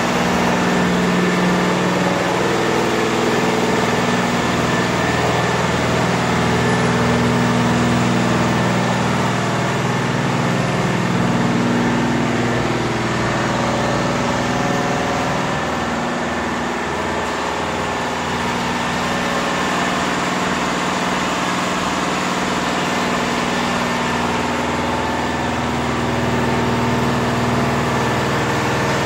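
A Richpeace 12-head flat embroidery machine running steadily through a test run, its needle heads stitching together.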